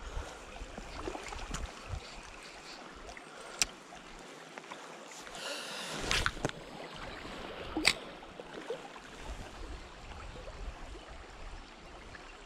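Shallow river water flowing and rippling over a stony bed, a steady rush. Two sharp clicks about three and a half and eight seconds in, and a brief louder rush of noise about six seconds in.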